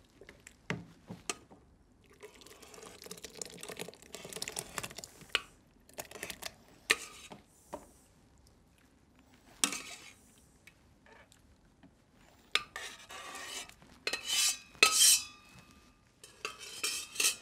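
Large metal spoon scraping and clinking against a stainless steel saucepan as cream of broccoli soup is spooned out into a blender jar. The scrapes and knocks come in uneven bursts with short quiet gaps.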